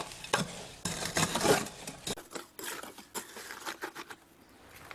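Hand scoop scraping and digging into wet concrete in a wheelbarrow: a run of gritty scrapes and crunches, busiest in the first two seconds, then thinning to a few scattered clicks.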